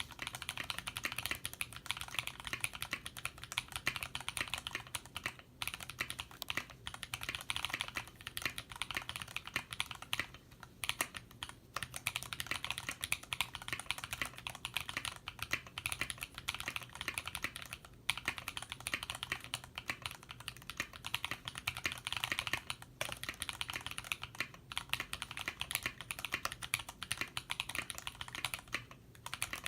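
Fast, continuous typing on a custom Singa R2 mechanical keyboard with lightly lubed tactile Holy Chickies switches, band-aid-modded Cherry screw-in stabilisers and a Sorbothane-dampened case. The keystrokes clack densely, with a few brief pauses.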